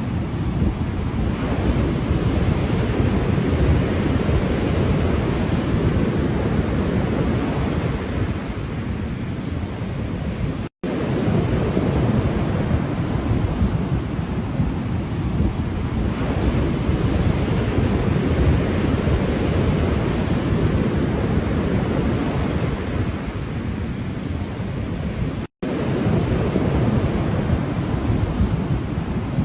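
Ocean surf washing steadily, with wind rumbling on the microphone. The sound cuts out completely for an instant twice, about 11 seconds in and again near 26 seconds.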